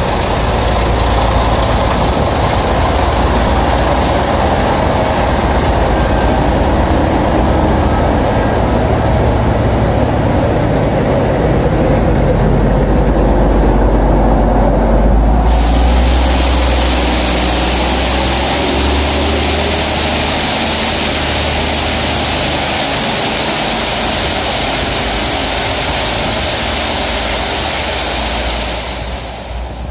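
Network Rail railhead treatment train passing slowly, a steady low rumble of diesel locomotive and wagons. About halfway a loud steady hiss starts suddenly and runs on until it fades near the end as the train draws away.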